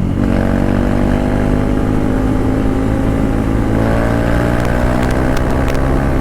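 KTM Duke 390's single-cylinder engine running loud through an open exhaust with the stock silencer removed, the bike under way and its note rising slightly in the first couple of seconds, then steady. A few sharp clicks near the end.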